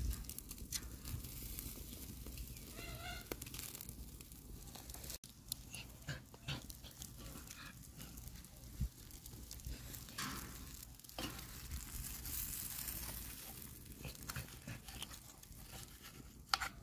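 Scattered clicks and light clatter of metal tongs working beef ribs on a steel grill grate and into a cast-iron skillet, over a crackling wood fire.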